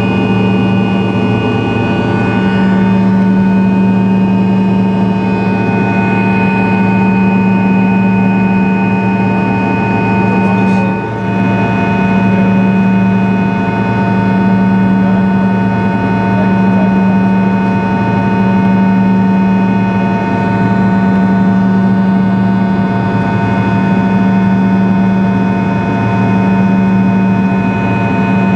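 Fokker 100's rear-mounted Rolls-Royce Tay turbofan running at climb power after takeoff, heard from inside the cabin next to the engine: a steady deep hum under a set of steady high whining tones. The loudness dips briefly about eleven seconds in.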